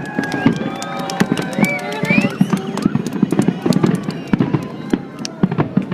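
Fireworks going off in rapid succession, a dense run of sharp pops and crackles with heavier low bangs mixed in, and some pitched sounds gliding up and down over them.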